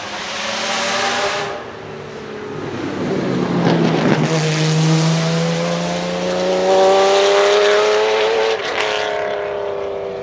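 Jaguar XJR-15 race car's 6.0-litre V12 accelerating hard past close by and pulling away, its note rising steadily through the gear. Near the end there is a sudden drop in pitch at an upshift, and the engine carries on, fading.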